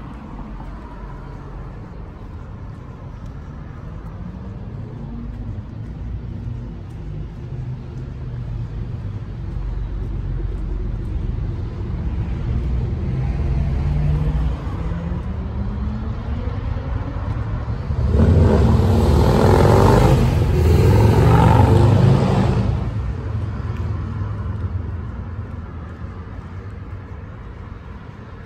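Road traffic beside a city street: a vehicle's engine note rises steadily as it accelerates, then a louder vehicle passes close by for about four seconds and fades away.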